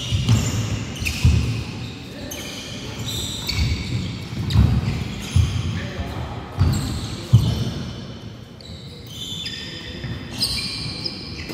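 Badminton doubles rally on a wooden indoor court: racket strikes on the shuttlecock and footfalls on the floor as sharp knocks at irregular intervals, mixed with short high shoe squeaks, echoing in the large hall.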